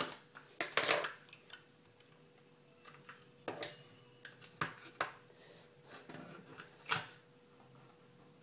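Plastic Xbox 360 Slim hard drive casing being cut at its seal with a knife and prised apart: scattered sharp clicks, snaps and short scrapes, a quick cluster in the first second, then single ones, the loudest about seven seconds in.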